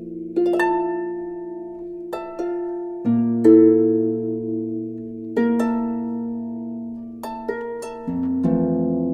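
Slow instrumental background music: plucked-string notes that strike and fade, over held low chords.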